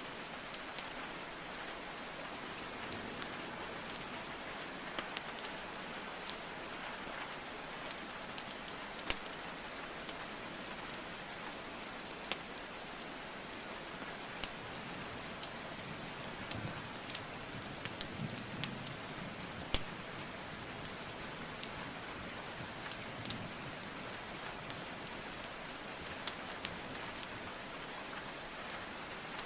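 Steady rain hiss mixed with a wood fire crackling, sharp pops and snaps scattered irregularly every second or few.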